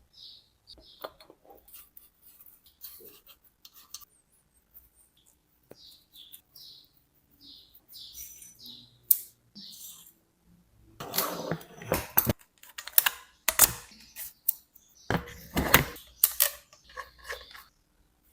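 Metal parts clicking and clattering in loud, dense bursts in the second half, with scattered lighter clicks before, most likely from work on a bicycle headset. Short high chirps, like a small bird, repeat in the first few seconds.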